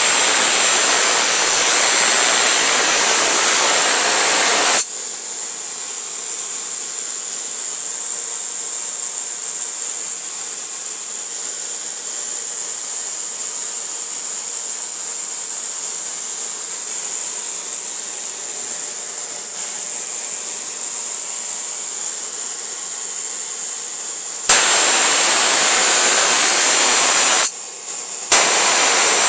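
Homemade 15 kV DC spark gap with a beer-bottle capacitor bank firing continuously across a short, fat half-inch gap: a loud, steady noise. It cuts off abruptly about five seconds in, leaving a much quieter steady hiss. It starts again about five seconds before the end, with a brief break less than a second long shortly after.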